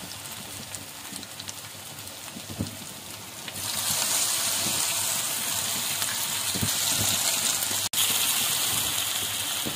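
Chicken-and-potato chapli kababs frying in hot oil in a pan: a steady sizzle that gets louder about three and a half seconds in. It cuts out for an instant near the end.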